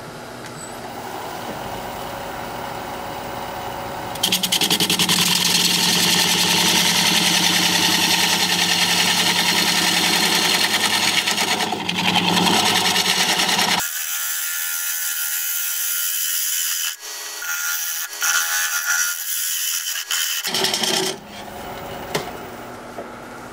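Wood lathe spinning a hard live oak bowl while a turning tool cuts the inside, a rasping cut that grows louder about four seconds in and thins out around fourteen seconds in.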